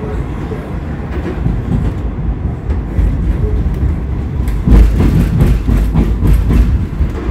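Cologne Stadtbahn light-rail car running along street tracks, heard from inside the car: a steady low rumble of wheels on rails with clacks and rattles that get louder about two-thirds of the way through.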